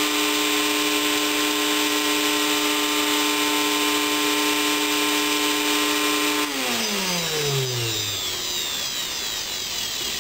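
Shop vac's 1.5-horsepower electric motor, its bushing freshly cleaned and oiled with 3-in-1 oil, running at full speed with a steady whine. About six seconds in it is switched off and spins down, its pitch falling smoothly for a nice quiet ending.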